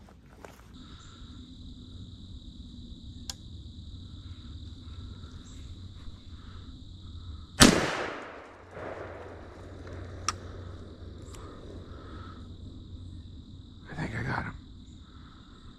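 One shot from a single-shot lever-action Ithaca .410 shotgun: a sharp crack about halfway through that dies away over about a second. A steady high insect trill runs underneath, and a shorter, duller noise comes about six seconds after the shot.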